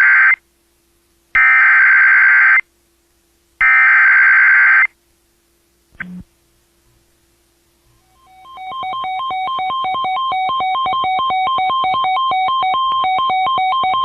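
Emergency Alert System SAME header: the end of one burst of screechy data tones, then two more bursts of about a second each, then a brief click. From about eight seconds in comes a loud warbling attention signal, two tones alternating rapidly.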